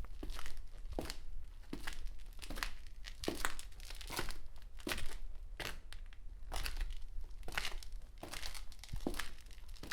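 Footsteps of a person walking on concrete at a steady pace, about one to one and a half steps a second, each step a short gritty scuff.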